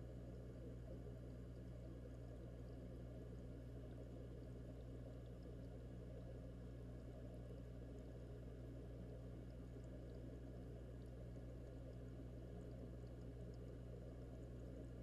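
Faint, steady low hum and muffled bubbling heard underwater inside a fish tank, from air bubblers sending columns of bubbles up through the water.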